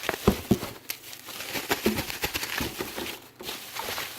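Rustling and crinkling of packing peanuts and plastic packaging as hands dig into a box, with irregular sharp crackles throughout.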